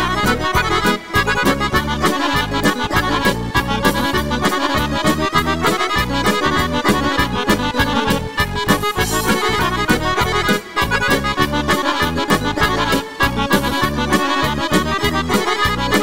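Instrumental break in a Serbian song: an accordion plays the melody over a steady beat, with no singing.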